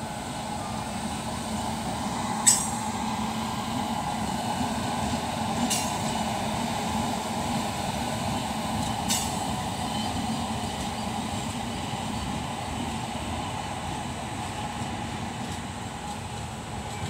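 Electric-hauled passenger train running past: the locomotive and coaches make a steady rumble and hum of wheels on rail, with three sharp clicks a few seconds apart, the first the loudest.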